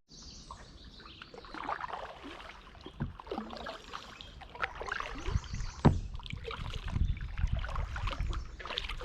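Kayak being paddled: irregular splashing and dripping of paddle strokes in the water, with a few sharp knocks, the loudest about three and six seconds in.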